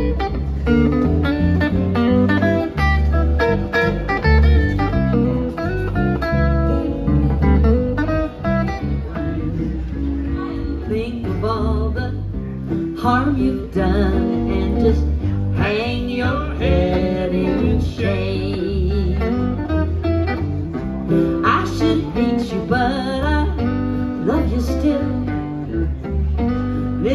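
Live country music: an acoustic guitar strummed over an electric bass line, with a woman singing.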